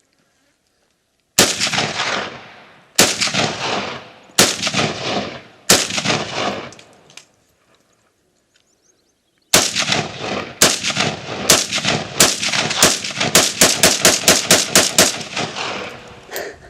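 AK-47 rifle fired semi-automatically: four shots about a second and a half apart, a short pause, then a long fast string of about twenty shots that speeds up to around five a second, each shot with a short echoing tail.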